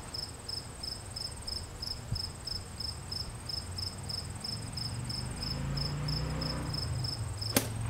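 Crickets chirping steadily, a high pulse about three times a second over a thin continuous trill. A low hum builds from about five seconds in, and a single sharp click comes near the end as the iron strikes the ball.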